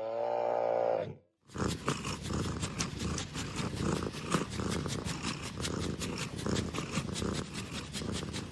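Domestic cat purring loudly and close up, a steady run of rapid rough pulses that starts about a second and a half in, after a short pitched call in the first second.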